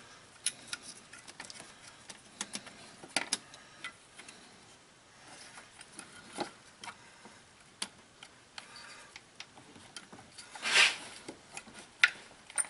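Scattered light clicks and taps as a replacement distributor housing is handled and worked into place on the cylinder head of a Honda D16Y8 engine, with one louder scuff about eleven seconds in.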